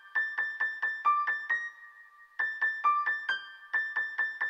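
Music: a high, bell-like keyboard melody of quickly struck notes. It plays a run of about eight notes, pauses briefly, then repeats the same run, with no drums or bass.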